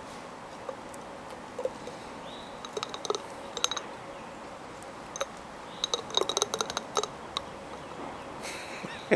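Dog licking out the inside of a glass jar, its tongue and teeth clicking and tapping against the glass in quick clusters, some taps with a short glassy ring.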